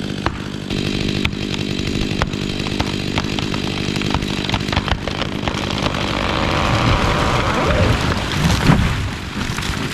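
Chainsaw running steadily while cutting a dead fir tree, with scattered clicks and knocks. A rushing swell of noise builds over the last few seconds and peaks in a heavy thud near the end.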